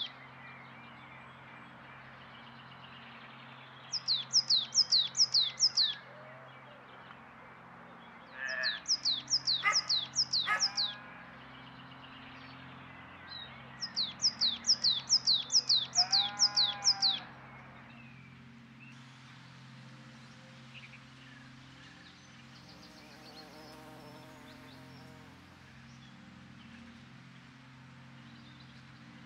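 A songbird sings three short phrases of quick, high, downslurred notes a few seconds apart, with lower, harsher calls under the second and third phrases. After these only a steady low hum and faint hiss remain.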